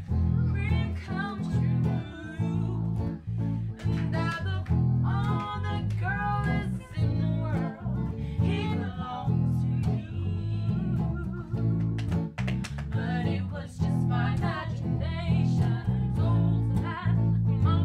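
Women singing a song together with guitar accompaniment.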